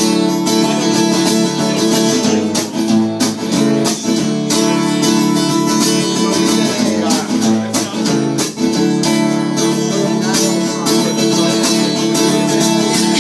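Acoustic guitar strummed in steady rhythm, an instrumental passage with no singing.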